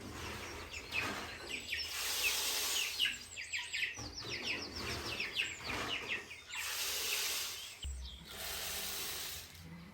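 Poultry chirping in a quick run of short, falling calls for a few seconds in the middle. Bursts of hissing noise, each a second or more long, come and go around them.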